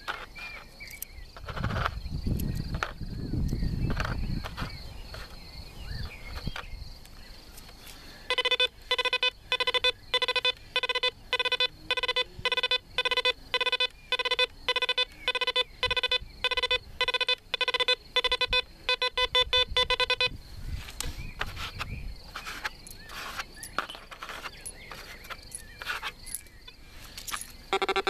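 Pirate Black Devil 2 PRO metal detector beeping as its coil is swept over a row of closely spaced nails and coins, giving a rapid run of short, same-pitched beeps, about two a second, for some twelve seconds in the middle: a test of how quickly it recovers between targets. A low rumble comes in the first few seconds.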